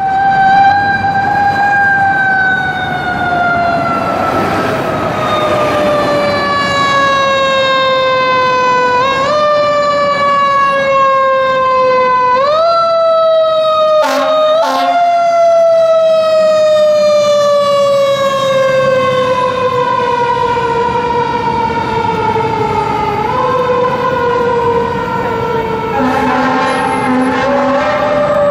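Fire engine siren wailing in a long, slowly falling glide that is pushed back up in pitch several times. Short blasts of the truck's low air horn come about halfway through and again near the end.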